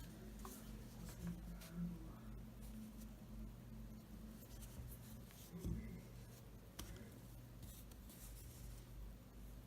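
Quiet room tone: a steady low hum with a few faint clicks and light scratchy handling sounds.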